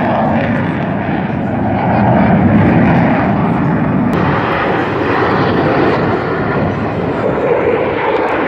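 Fighter jet engine noise overhead: a loud, steady rushing roar that swells about two seconds in.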